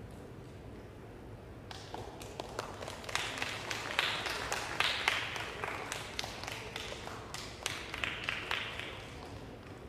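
Scattered hand-clapping applause from a small audience, starting about two seconds in, densest a few seconds later, then thinning out near the end.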